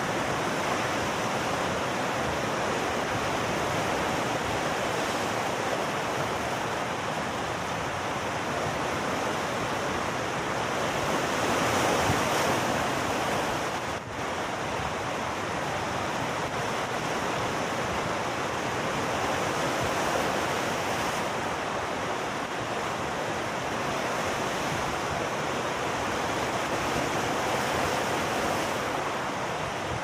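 Rough sea surf washing and breaking over rocks in a steady rush, swelling about a third of the way in, with a brief drop about halfway.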